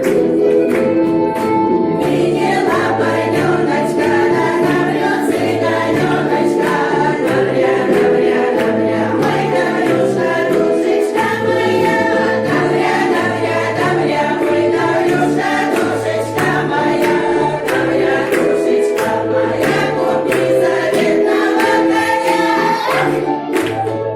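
Older women's folk ensemble singing a Russian folk song in chorus over instrumental accompaniment, with a regularly alternating bass line and repeated sharp strokes of rhythm.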